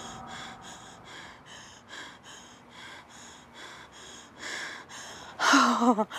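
Rapid, rhythmic heavy breathing, about three breaths a second, followed near the end by a louder, wavering vocal sound from a woman, like a groan.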